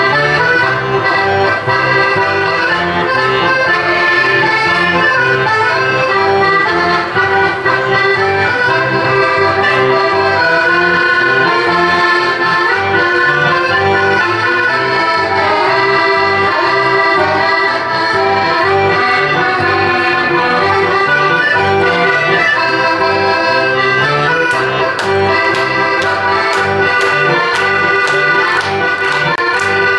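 Accordion-led Dutch folk-dance music with a steady beat. Near the end, sharp claps about twice a second join in.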